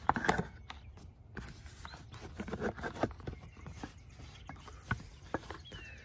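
Hard plastic seat side trim cover being handled and pushed into place around the seat belt buckle mount: scattered light clicks and knocks of plastic against plastic and metal.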